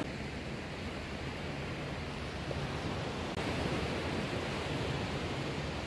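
Steady wash of surf breaking on a sandy beach, an even rushing noise that swells slightly about three and a half seconds in.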